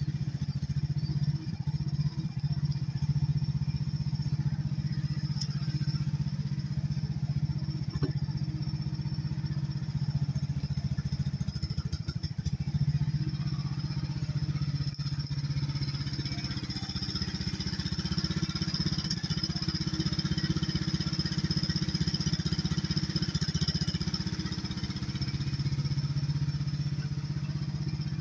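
HT10 mini excavator's engine running steadily while the machine digs, its note dipping briefly a few times. There are a couple of sharp knocks along the way.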